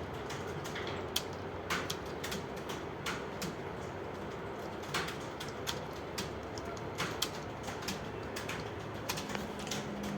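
Computer keyboards clicking irregularly as several people type at once, over a steady background hum.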